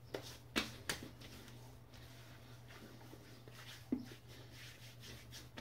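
Hands slapping and patting aftershave onto freshly shaved cheeks and neck: a few soft slaps, three in the first second and one more about four seconds in, over a faint steady room hum.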